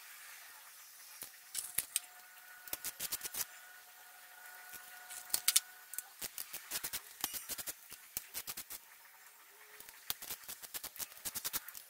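Hand ratchet clicking in short runs, with light metal clinks, as bolts are undone from an engine's timing-chain front cover. The clicks come in several separate bursts.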